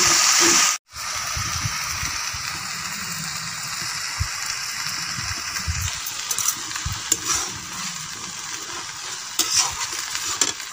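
Chopped Malabar spinach and vegetables sizzling in a steel kadai over a wood fire, with a steel ladle stirring and now and then clicking against the pan. The sound cuts out suddenly for a moment about a second in.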